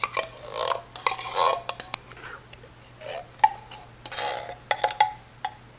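Thick condensed tomato soup sliding and plopping out of a tin can into a slow cooker. It comes out in several bursts, with sharp clicks of the can in between.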